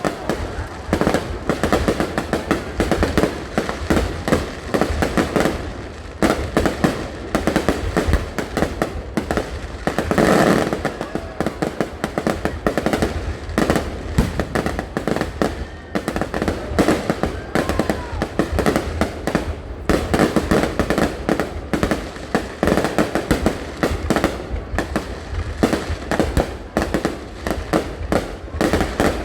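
Fireworks going off in a dense, unbroken barrage of bangs and crackles, many reports overlapping each other.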